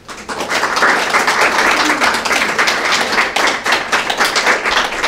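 Audience applauding: many hands clapping at once, starting suddenly and keeping up steadily.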